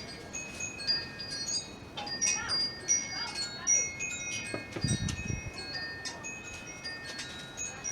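Wind chimes ringing irregularly as wind blows them hard: scattered overlapping high metallic tones. A brief low rumble comes about five seconds in.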